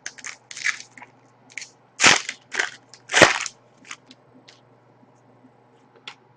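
Trading card pack wrappers and cards being handled: a run of short crinkles and rustles, with two louder crunches about two and three seconds in, then a few light ticks.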